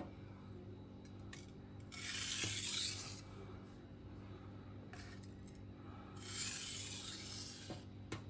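Chef knife blade scraped across a diamond whetstone in two slow, gentle strokes, each about a second long, some four seconds apart, with light clicks of the blade between them. These are light edge-leading passes to take off the remaining burr.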